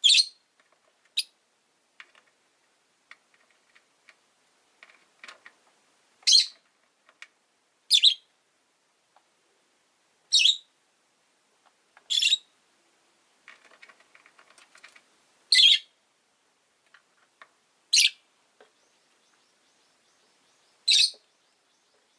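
Rosy-faced lovebirds calling: short, loud, high-pitched chirps repeated every two to three seconds, about eight in all, with soft chattering in between.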